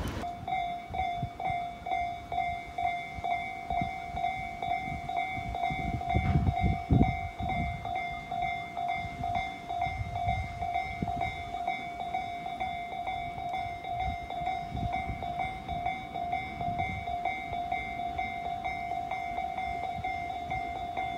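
Railway level-crossing warning bell ringing on and on, a steady repeated electronic ding, with low wind rumble on the microphone underneath.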